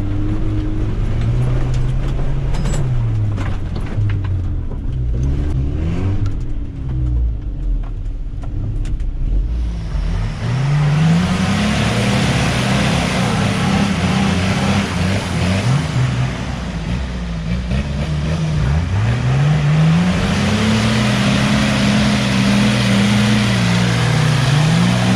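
Off-road 4x4 engine running and revving, heard muffled from inside the cabin. About ten seconds in, the sound switches to 4x4 engines heard outside, revving up and down over and over as one vehicle tows another through deep mud on a strap.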